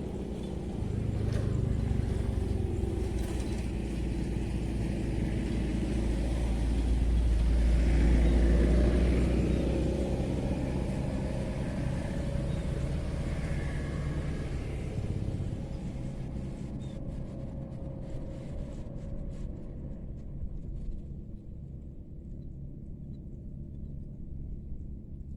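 An engine passing by: a low rumble that swells to its loudest about eight seconds in, then slowly fades away.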